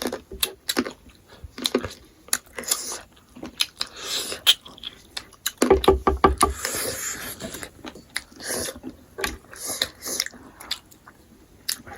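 Close-up eating sounds: chewing and biting into smoked pork, with many wet clicks and smacks, and a louder flurry of chewing a little past halfway.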